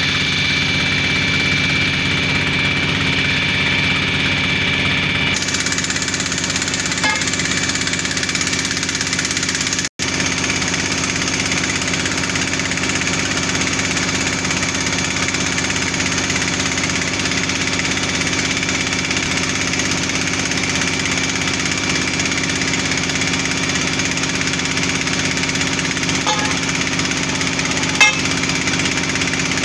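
Engine of a trailer-mounted borehole drilling rig running steadily under drilling work. The sound cuts out for an instant about a third of the way through, and there is a small click near the end.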